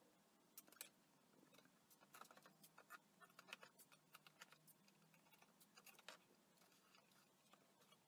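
Faint, scattered light clicks and taps of thin pine edge strips and a masking-tape roll being handled against plywood drawer boxes.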